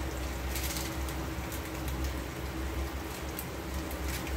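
Food sizzling and bubbling in a pan, with a few sharper crackles over a steady low hum.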